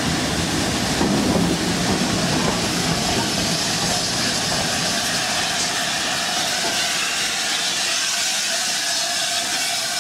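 LNER A4 Pacific steam locomotive Bittern passing at close range with a steady hiss of steam, its wheels rolling on the rails; near the end its coaches run by.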